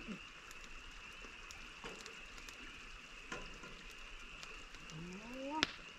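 Light scattered clicks and scrapes of serving utensils against cookware as meatballs in sauce are dished up, over a steady high hiss. Near the end comes a short rising voice-like sound, then a sharp click.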